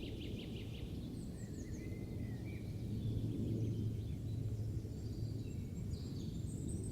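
Countryside ambience: scattered faint birdsong, with short chirps and little gliding calls, over a steady low hum.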